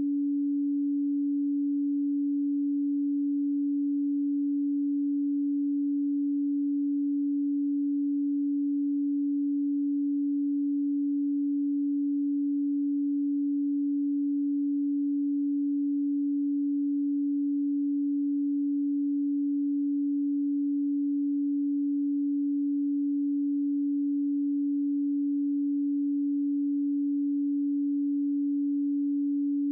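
A single steady pure sine tone at 285 Hz, held unchanged without any other sound.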